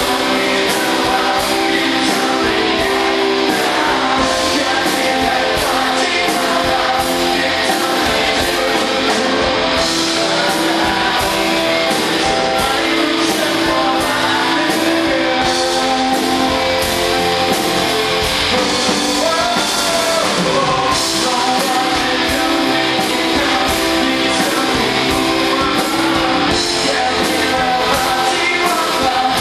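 Live pop-rock band playing a song with singing, electric guitar, keyboard and drums keeping a steady beat.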